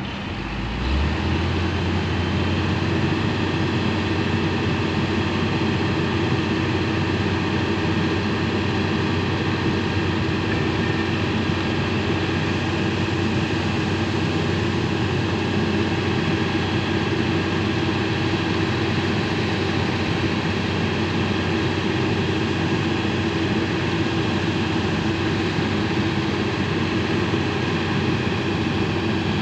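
Heavy diesel engines of a concrete mixer truck and excavator running steadily. About a second in, an engine picks up speed and the sound grows louder, then holds an even drone.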